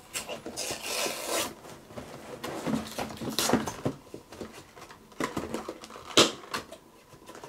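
Cardboard toy boxes being handled and picked at: scattered scratches, rustles and taps, with a sharp knock a little after six seconds in.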